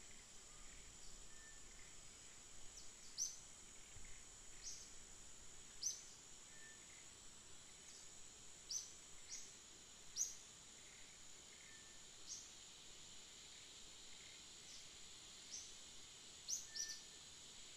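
Faint forest ambience: a steady high-pitched insect drone, with short, sharp bird chirps coming irregularly every second or two.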